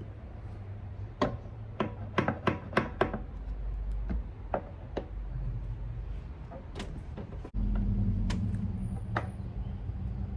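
Sharp clicks and knocks of hard parts and tools being handled, a quick run of them in the first few seconds and a few more scattered later. Under them is a steady low rumble that steps up abruptly about seven and a half seconds in.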